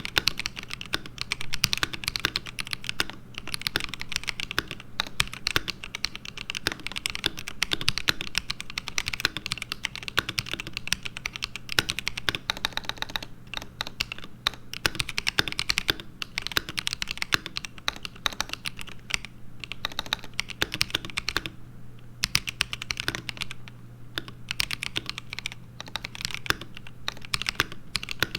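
Fast, continuous typing on an ASUS ROG Azoth mechanical keyboard with stock, pre-lubed ROG NX Red linear switches: a dense run of key strokes with a few short pauses.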